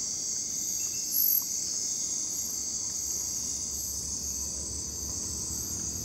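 Night-time jungle insect chorus: a steady high-pitched shrill, with short, higher chirps repeating over it and one louder chirp about a second in.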